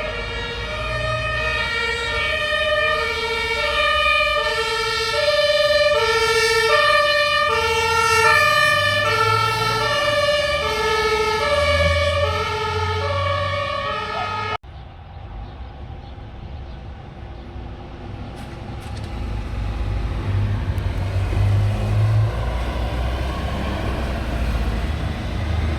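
A loud sequence of held, pitched tones stepping between several different notes about once or twice a second, of the siren or horn kind. After an abrupt cut about halfway through, a low vehicle rumble with road noise takes over and grows louder.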